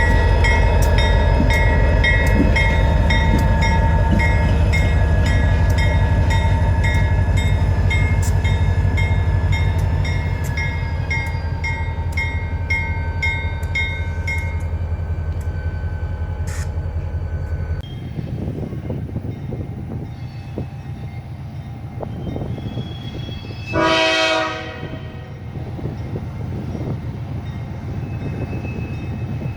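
Diesel-electric locomotive running under a loud, steady low rumble, with a high turbocharger whine over it; the engine sound drops away abruptly about 18 seconds in. About 24 seconds in, a locomotive horn gives one short blast.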